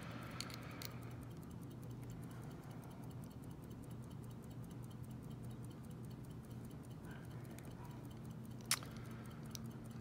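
A few small metallic clicks from a padlock's brass lock cylinder being handled and worked in the fingers: two light ones near the start and a sharper one near the end. Under them run a steady low hum and a faint, regular ticking.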